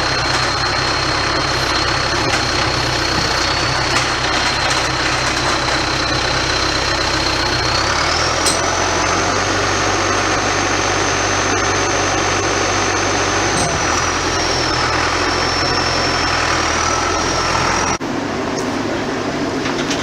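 Heavy farm machinery engine running steadily, with a high whine that steps up in pitch about eight seconds in. The sound changes abruptly near the end.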